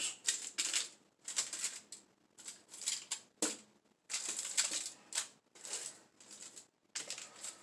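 Aluminum foil crinkling as hands shift frozen chicken wings around a foil-lined baking tray, in short irregular bursts with brief pauses between them.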